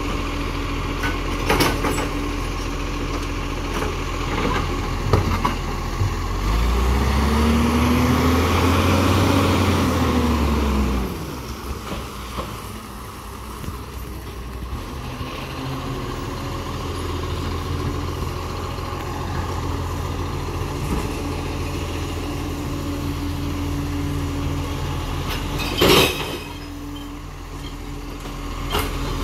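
Diesel engine of a side-loader rubbish truck running while its automated arm handles wheelie bins, with a few knocks early on. The engine revs up and back down over several seconds, then cuts back and runs quieter and steady. A short, sharp hiss near the end is typical of an air brake.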